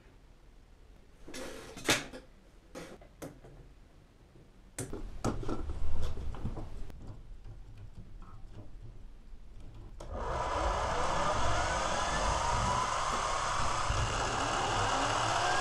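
Plastic K'Nex parts clicking and knocking as the coaster and its car are handled. About ten seconds in, the K'Nex booster-wheel motors switch on and run with a steady whir, whose whine slides up and down as the spinning wheels work on the car.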